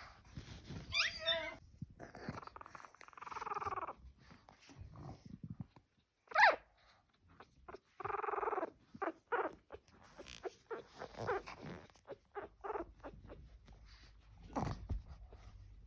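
Two-week-old pug puppies whimpering and squealing: a string of small pitched calls, some short sharp squeaks and some longer whines, the loudest a brief squeal about six seconds in.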